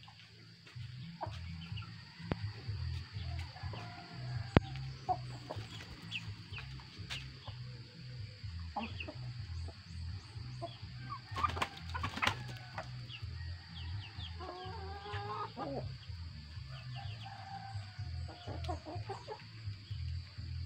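Free-range chickens clucking as they peck at grated-coconut residue scattered on the ground. There are scattered short calls and a longer, fuller call about two-thirds of the way through.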